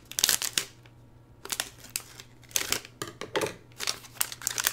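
Crinkling of a metallic anti-static plastic bag being handled, in several short bursts, with quicker rustles near the end.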